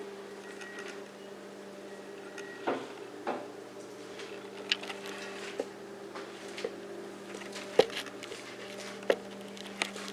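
Kitchen cleaning noises: scattered light knocks and clicks of things being handled and set down, the sharpest about 8 seconds in, over a steady low hum.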